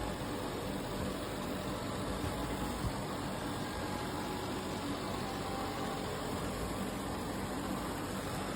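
Robot vacuum's suction motor running steadily: an even whirring hiss with a low hum.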